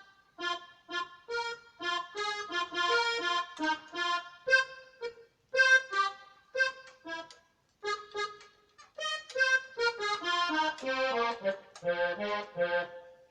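Casio CTK-3500 keyboard's accordion voice (tone 61) played as a run of short notes and chords, with brief pauses between phrases.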